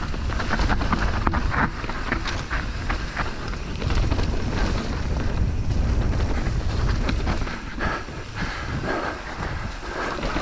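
Wind buffeting a helmet-mounted camera's microphone while a mountain bike rolls down a wet dirt singletrack, with tyre noise and many quick rattles and clicks from the bike over the rough trail.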